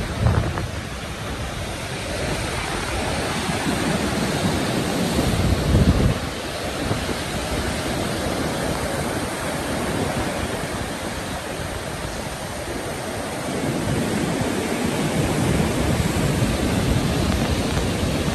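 Heavy storm surf in a rough sea, waves breaking and washing ashore in a continuous roar of rushing water, with a louder surge about six seconds in.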